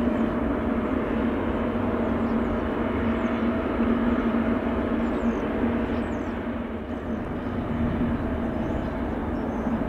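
Jet airliner engine noise, a steady rumble with a constant low hum; the level dips briefly about seven seconds in.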